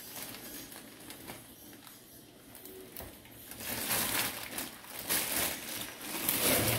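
Plastic bag and packet crinkling and rustling as dry rasmalai mix is shaken out of its packet onto a plate. The crackling is faint at first and gets louder and busier from about halfway through.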